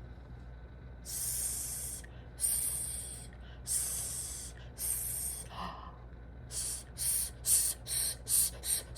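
A woman hissing the letter S sound: four long "sss" hisses, then a run of short, quickening "s-s-s" hisses near the end.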